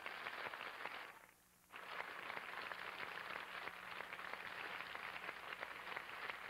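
Studio audience applauding, a dense patter of claps that drops out briefly about a second in and then resumes.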